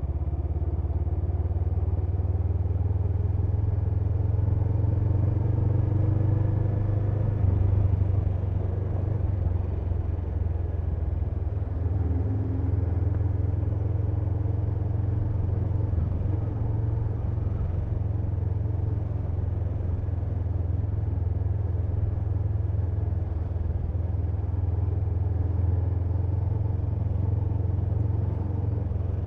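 An engine running steadily: a constant low hum, with faint wavering tones above it.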